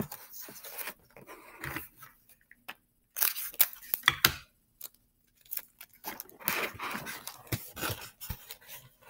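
Paper strips and sticky tape being handled: irregular rustling and crinkling with short sharp snips or tearing sounds, coming in two busy spells, one about three seconds in and a longer one from about six seconds.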